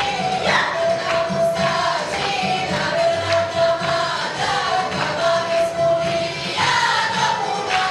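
Serbian folk dance music from Upper Pčinja with a group of voices singing. A long held high note comes back every couple of seconds over a rhythmic accompaniment.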